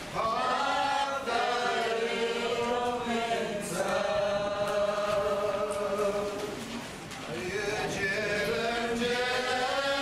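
Slow vocal music: voices singing a chant in long held notes that slide slowly between pitches, easing off briefly about seven seconds in before swelling again.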